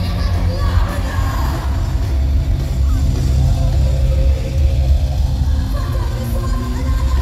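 A rock band playing live in a large hall, recorded from among the audience, with booming bass and drums and a female lead vocal, and crowd noise mixed in.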